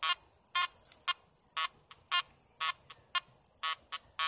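Makro Multi Kruzer metal detector giving short, evenly repeated beeps, about two a second, as the coil is swung back and forth over a buried dime test target, in two-tone mode at 14 kHz.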